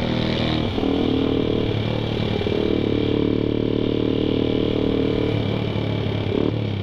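Suzuki Satria FU 150's single-cylinder four-stroke engine running while under way. Its note holds steady, then shifts in pitch about a second in and again near the end.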